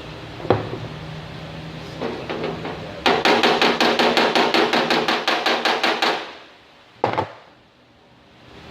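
Body hammer striking the sheet steel of a 1947 Chevrolet pickup's fender, likely over a dolly. A few separate taps come first, then a rapid run of ringing metallic strikes, about eight a second for some three seconds, and one more single knock near the end. The hammering levels metal that was stretched when a dent was pulled.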